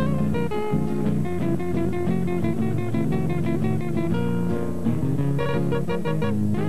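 Live band playing an instrumental introduction led by acoustic guitars, picking out a quick run of notes over chords.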